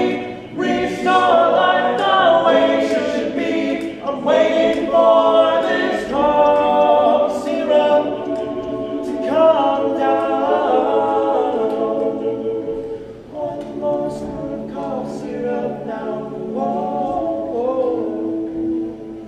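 Mixed a cappella vocal group singing in close harmony, many voices layered with no instruments. The singing is full for most of the passage, then drops to a softer level about two-thirds of the way through, ending on a long held note.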